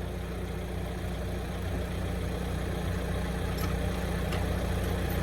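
Diesel engine of heavy equipment running steadily at idle, growing slightly louder toward the end.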